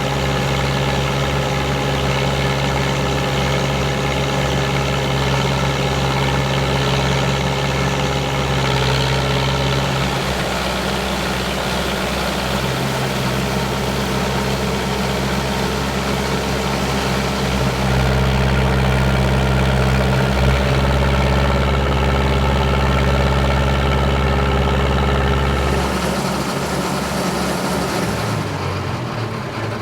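The 1974 John Deere 2130's 75 hp diesel engine runs steadily under load, driving a Teagle Tomahawk straw chopper/blower, with the blower's whirr above it. Its deep engine note shifts a few times and drops away about four seconds before the end.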